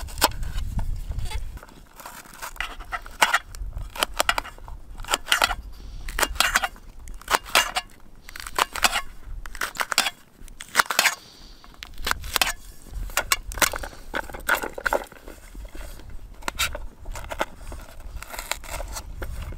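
A knife slicing raw vegetables, onions and potatoes, into thin slices: runs of quick, crunchy cuts, one after another, with short pauses between runs.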